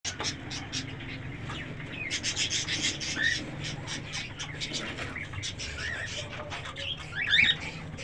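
Cockatiel in a wooden nest box giving short chirps, with a louder burst of calls near the end, over scraping and rustling as the box is handled.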